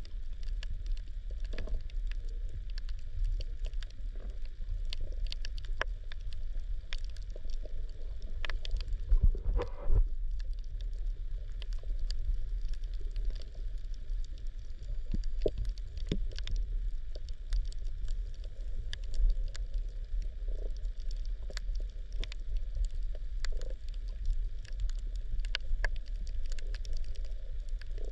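Underwater sound picked up by a camera on a coral reef: a steady low rumble with scattered sharp clicks and crackles, and a louder knock about nine to ten seconds in.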